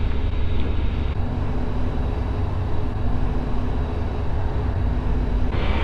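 FK9 Mark IV ultralight's engine and propeller running steadily with the throttle back, heard inside the cockpit during the flare and touchdown of a touch-and-go.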